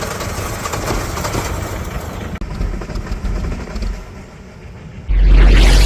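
MINI Cooper engine being cranked and chugging unevenly without catching, the tractor-like sound of a car that will not start; it dies down near the end. A loud low rumble fills the last second.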